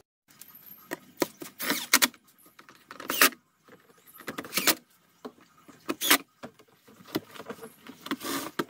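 Cordless drill-driver running in short bursts, about eight in all, as it drives in the screws of a car's air filter housing cover.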